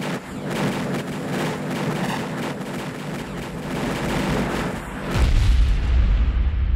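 Designed film sound effects for particles hurtling through an accelerator: a rapid, irregular string of crackling, popping hits over a steady low drone. About five seconds in, a deep rumble swells and the high crackle dies away.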